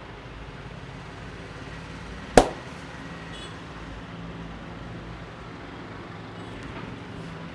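A single sharp, loud smack about two seconds in, over steady low background hum and noise.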